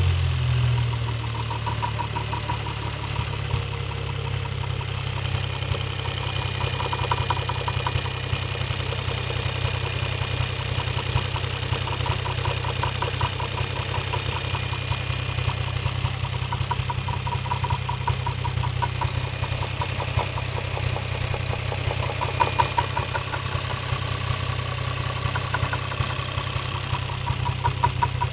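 Toyota 1JZ-GTE VVT-i turbocharged straight-six idling steadily, with a fast light knocking that comes and goes every few seconds: the engine knock the owner is recording.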